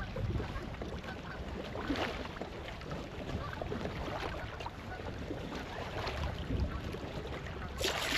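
Water splashing and lapping against a kayak, with a steady low rumble underneath and a louder splash near the end.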